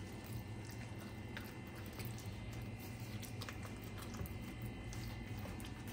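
Faint wet squelching and squishing as a plastic-gloved hand kneads raw chicken strips through a thick marinade in a bowl, with scattered small sticky clicks, over a steady low hum.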